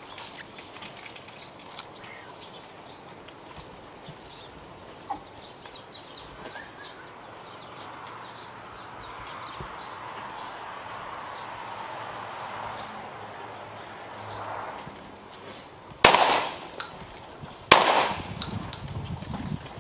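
Two shotgun shots about a second and a half apart near the end, each with a short echoing tail, fired at pigeons in flight.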